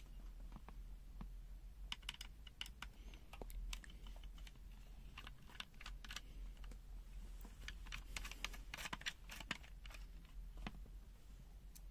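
Irregular light clicks and taps of a multimeter's plastic case and internal parts being handled during a teardown, thickest in the middle stretch, over a steady low hum.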